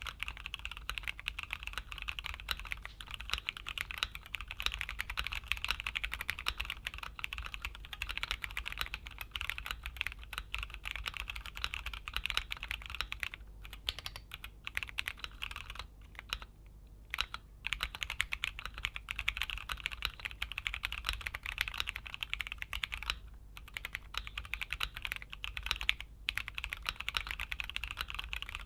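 Keychron Q1 Pro mechanical keyboard being typed on steadily, a fast run of key clacks with a few short pauses.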